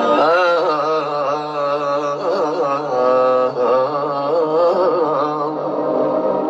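Male voice singing a slow Albanian ballad live into a microphone, the melody bending and ornamented, over a held instrumental backing. The voice stops about five and a half seconds in, leaving the backing sounding alone.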